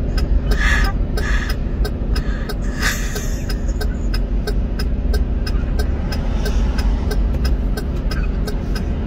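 Car engine idling in traffic, heard from inside the car as a steady low rumble, with a regular ticking about three times a second.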